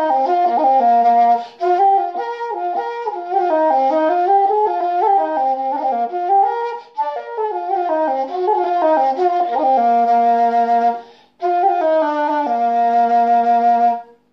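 Terry McGee B-flat Irish flute playing a melody of quick running notes, broken by brief breath pauses, ending on a long held low note that stops near the end.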